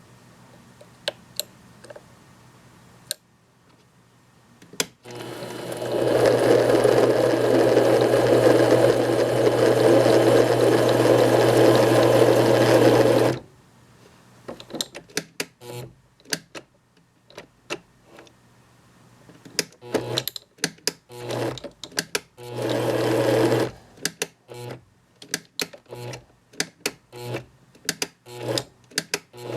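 Compact 7 benchtop lathe running steadily with a constant motor hum for about seven seconds, then stopping. Afterwards come a string of small clicks and knocks, with the motor starting and stopping in two short runs.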